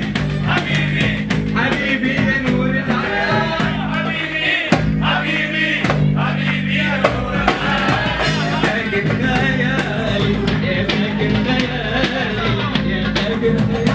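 Live band playing a song: classical guitar, violin and a drum kit with regular beats, under a male singer's voice.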